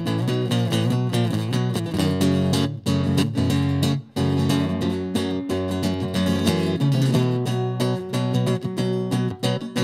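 Guitar playing an instrumental break between sung verses of a live country song, with chords struck in quick succession.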